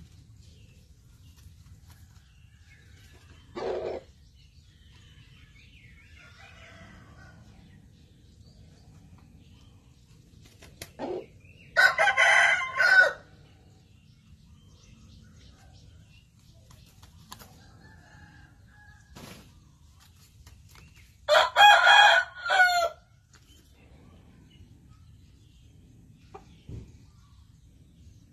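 Rooster crowing twice, each crow about a second and a half long, first about twelve seconds in and again about twenty-one seconds in, with a shorter single call about four seconds in.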